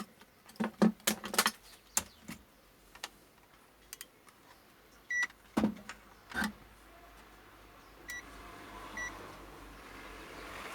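Digital multimeter in continuity mode giving three short steady beeps, a sign that the probes have found a connection between the points tested. Clicks and taps of the test probes on the circuit board are heard around the beeps.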